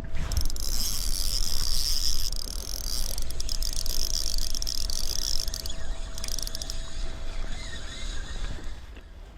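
Fishing boat at sea with its engine rumbling and a steady hum underneath. A loud, high, wavering whir runs from just after the start for about five seconds, then fades.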